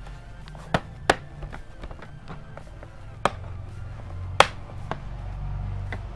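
Sharp plastic clicks and taps of a laptop's back panel being pressed back on and screwed down: four distinct knocks, the loudest about four seconds in.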